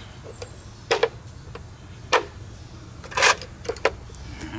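A handful of sharp metallic clicks and clanks, spaced irregularly, of hand tools and metal parts being handled, with the loudest cluster a little past three seconds in. A faint steady low hum lies underneath.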